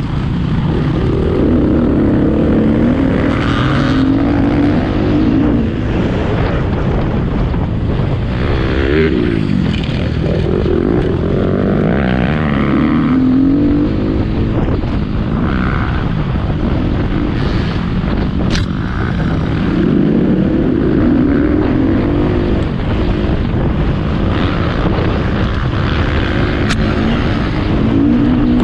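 2018 KTM EXC 250 F enduro motorcycle's single-cylinder four-stroke engine under way, its pitch climbing and dropping again and again as the throttle is opened and shut.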